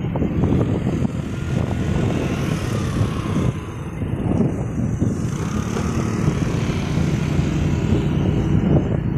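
Motorcycle riding along a street: its engine running under a steady low rumble of wind buffeting the microphone, with a faint whine that falls in pitch a couple of times.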